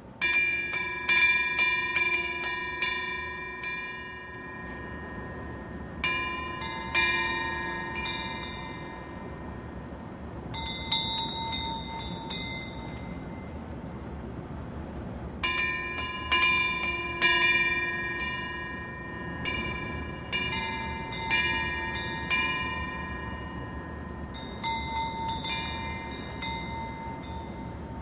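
Korean temple wind bells (pungyeong) hanging from the eaves, their clappers swinging in the wind. They ring in clusters of quick metallic strikes that keep sounding, about six bursts a few seconds apart, over a steady low hiss.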